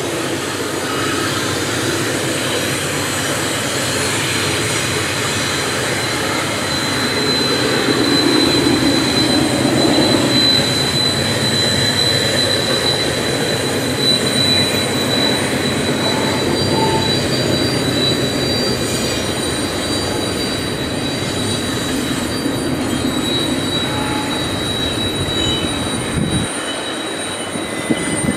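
Doublestack intermodal container cars of a freight train rolling past with a steady rumble and clatter. The wheels give a thin, steady high-pitched squeal through the first half, and fainter squeals after that: flange squeal on the curved track of the loop.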